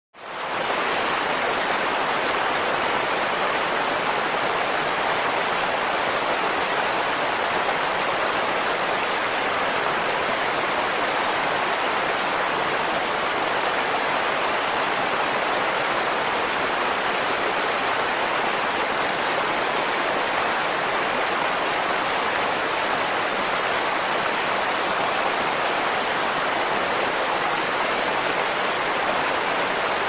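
Waterfall: a steady, unbroken rush of falling water, fading in over the first half second.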